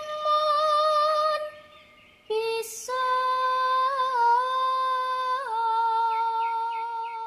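A woman singing long, held notes with a slight waver: one note for about a second and a half, then after a short break a longer phrase that steps down in pitch. A few quick bird chirps sound over the end.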